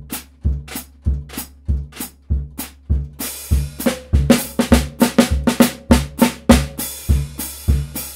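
Acoustic drum kit played with sticks: snare drum strokes over bass drum beats in a steady groove. The strokes grow busier about three and a half seconds in.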